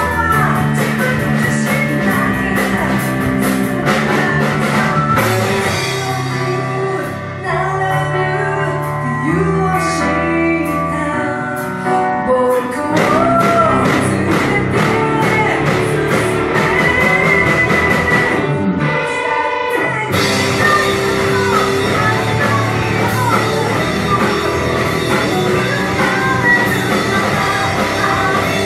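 Live rock band playing: a vocalist singing over electric guitar, bass, drum kit and piano. The drums thin out for a quieter passage from about 7 to 12 seconds in, and after a brief drop the full band comes back in about 20 seconds in.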